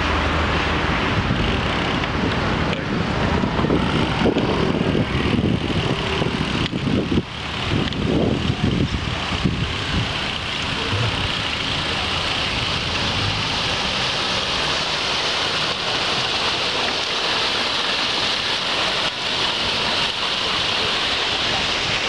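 Wind buffeting the camera microphone while riding, with street traffic behind it. About halfway through, the gusty rumble settles into a steady, even hiss.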